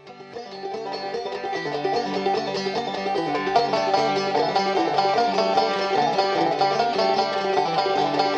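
Old-time clawhammer banjo music: a quick run of plucked notes that fades in over the first second or two, then plays on steadily.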